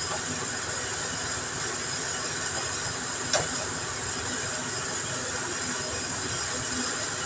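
Steady hiss of background noise, with one sharp plastic click about three and a half seconds in as the mesh air filter of a split-AC indoor unit is pressed into its slot.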